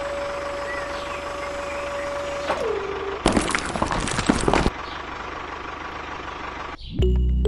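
Small motor of a miniature construction machine running steadily with a whine that drops in pitch about two and a half seconds in, followed by a second or so of loud rattling clatter before the steady running resumes.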